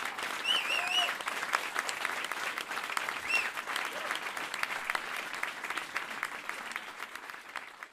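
Audience applauding, with a few cheering voices about half a second in and again about three seconds in; the clapping fades near the end.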